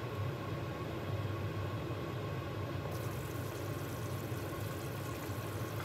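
Steady low hum and hiss of a pot of soup boiling on a gas burner, with a brighter hiss joining about halfway through.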